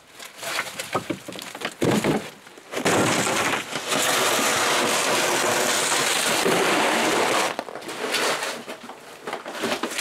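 Firewood being hauled and stacked: scattered knocks and clunks of split logs being handled, and from about three seconds in a steady crunching scrape lasting four or five seconds, then more irregular knocks near the end.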